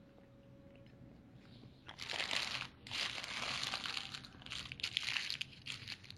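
Several bursts of crinkling, rustling noise close to the microphone, starting about two seconds in.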